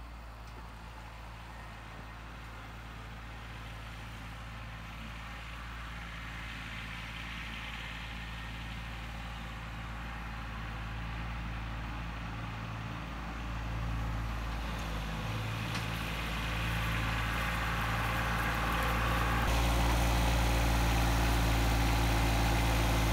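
A diesel engine running steadily, growing gradually louder, with a sudden further jump in level about three-quarters of the way through.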